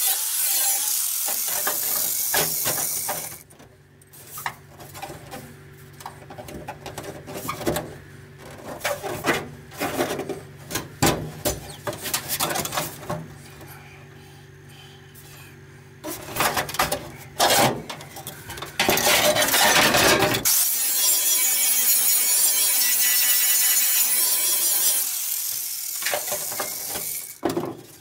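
Electric angle grinder cutting and dressing the edge of a steel floor patch panel. It grinds for the first few seconds and again for about six seconds from twenty seconds in. In between, the sheet metal being handled and test-fitted gives sharp knocks and rattles over a steady low hum.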